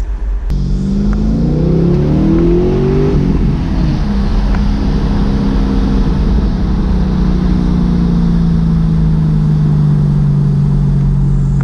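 Holden Commodore SSV's 6.0-litre LS2 V8 heard from inside the cabin through its X-Force cat-back exhaust with Varex bi-modal mufflers. It picks up suddenly about half a second in and climbs in pitch under acceleration for about three seconds, drops as it changes up, then holds steady while cruising.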